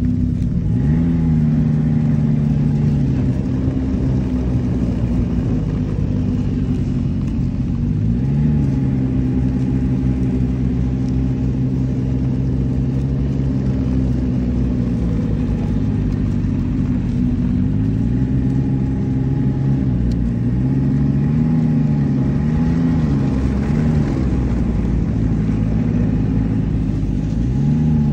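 Snowmobile engine running at low speed, its pitch rising with the throttle about a second in and again around eight seconds, then going up and down several times near the end.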